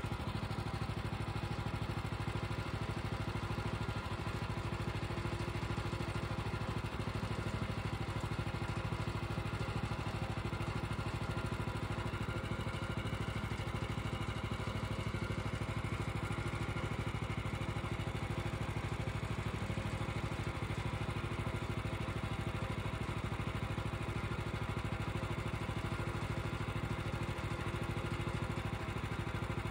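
Portable band sawmill's gas engine running steadily as the blade cuts along a log, the saw head pushed down the track by hand.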